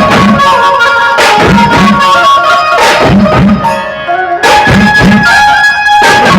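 Loud dhumal band music: a held melody line over a steady, repeating drum beat, which breaks off briefly about four seconds in before the full band comes back.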